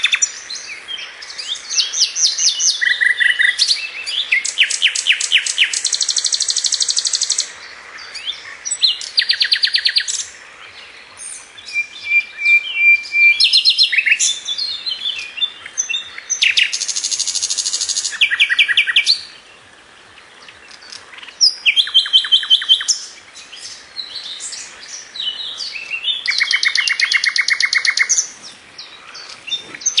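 Songbird singing loud, varied phrases of fast trills, rapidly repeated notes and a few held whistles. The phrases are a second or a few seconds long, with short pauses between them, over a faint steady hiss.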